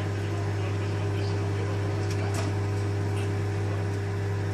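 Microwave oven running with a steady low hum, and a few faint clicks about two and three seconds in.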